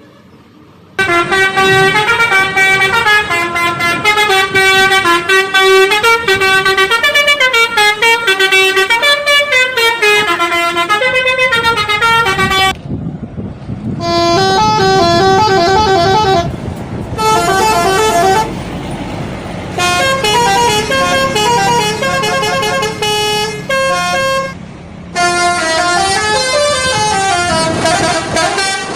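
Bus 'telolet' horn, a multi-tone musical air horn, playing fast stepping melodies in several runs with short breaks between them, over a low rumble. It starts suddenly about a second in.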